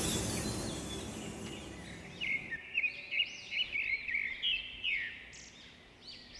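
Music fading out over the first two seconds, then a run of quick, high, bird-like chirps, several a second, continuing to the end.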